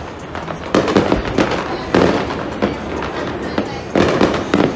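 Fireworks display going off: a string of loud bangs and crackles, with several close together about a second in, around two seconds, and a quick cluster near the end.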